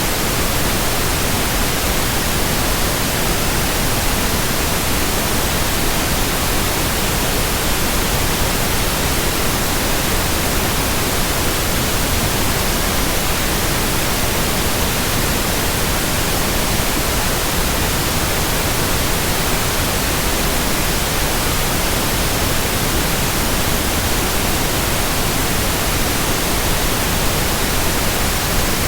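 Steady white noise: an even hiss spread across all pitches, with no change, rhythm or distinct tones.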